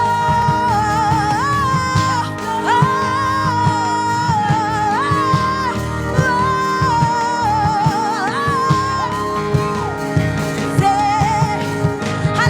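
A lead voice singing over a band with drums and bass, holding long notes that slide up and down between pitches.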